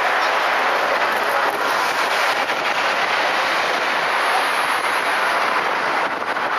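Steady road traffic noise from vehicles passing.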